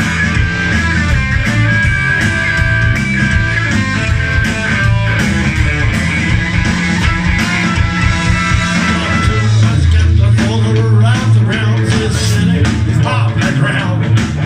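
Live rock band playing loud: electric guitar, bass and drums, with trumpet and saxophone holding long notes. A singer's voice comes in about ten seconds in.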